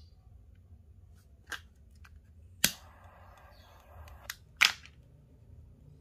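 A lighter being sparked: a loud snapping click, then a steady gas hiss for about a second and a half, then more clicks. This is the flame used to melt the ends of the gutted paracord.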